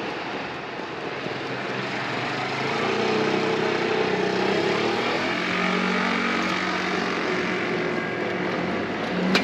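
Street traffic: a motor vehicle passes close by, its low engine hum growing louder from about three seconds in and fading again over steady road noise.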